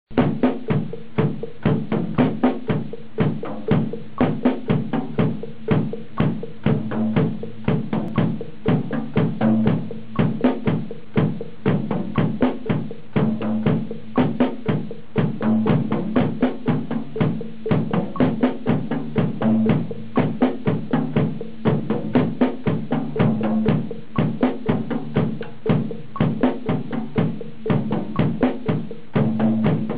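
Acoustic drum kit played with sticks: a fast, even, unbroken run of strokes on the drums, with the drum heads ringing.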